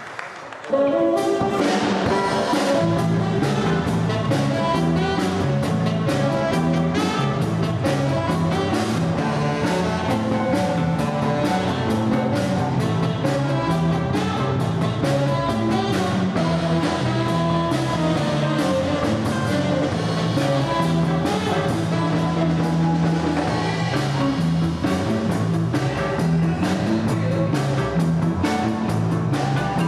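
Live band playing a jazzy number with saxophone, electric guitars, keyboard and drum kit, with a steady drum beat and a moving bass line; the music comes back in after a short lull about a second in.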